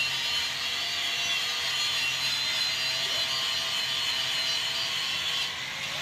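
Angle grinder running against the rim of an aluminium alloy car wheel, a steady high whirring and rubbing hiss as stray paint is cleaned off in the final touch-up after the repair.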